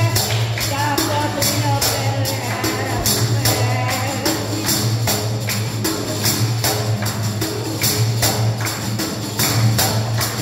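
Def, a large frame drum with metal jingles, beaten by hand in a steady, quick rhythm, the jingles ringing on every stroke.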